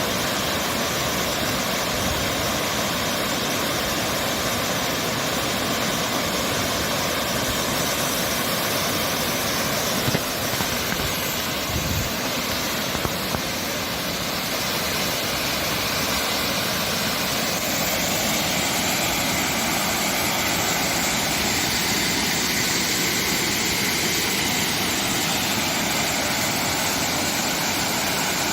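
Waterfall: a steady, even rush of falling water, with a few brief knocks about halfway through.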